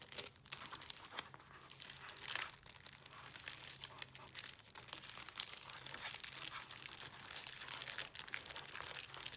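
Clear plastic cellophane bags crinkling and rustling in the hands as they are handled and slipped into a paper envelope. The crackling is irregular and continuous, with many small crackles.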